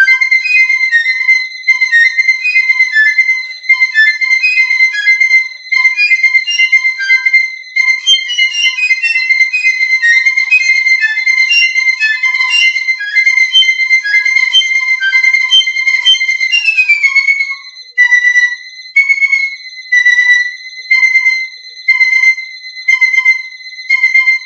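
Piccolo playing quick, shifting notes over the fast, steady pulsing beep of an electronic alarm clock. About two-thirds of the way through, the piccolo slides steeply down in pitch. After that, the music breaks into short bursts about once a second.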